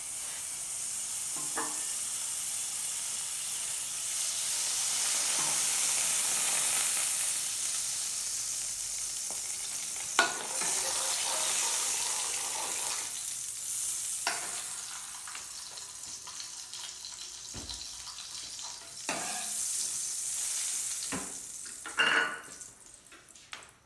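Oil sizzling in a frying pan on a gas burner, a steady high hiss that grows louder for a while and fades near the end. A metal ladle knocks and scrapes against the pan several times.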